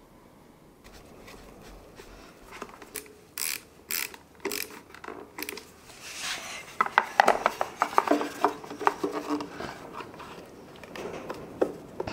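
Handling noises as a small sealed lead-acid battery is fitted into a plastic junction box and its terminal wire is connected: scattered clicks and knocks, then a denser run of clicks and rattles from about six to nine and a half seconds in.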